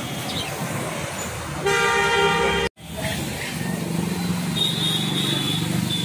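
Street traffic noise with a vehicle horn sounding once, for about a second, a little under two seconds in. Just after the horn the sound cuts out for an instant.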